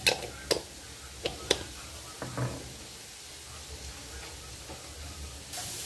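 Sharp knocks and clicks of glass spice jars being handled on the kitchen counter: four in the first second and a half, then a softer one. Near the end a steady hiss starts suddenly.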